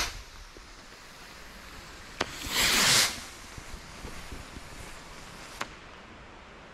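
Parachute firework rockets going off: a launch whoosh dies away at the start, then a sharp pop about two seconds in, a second whooshing hiss lasting under a second with a few faint crackles after it, and another sharp pop near the end.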